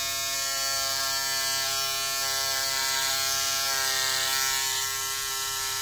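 Kemei 1123 electric shaver running with a steady hum as its rear trimmer is run over forearm hair, the tone shifting slightly about four seconds in.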